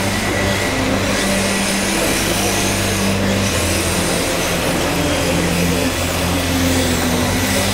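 Busy exhibition-hall din: a steady wash of noise under background music whose low bass notes change every second or so.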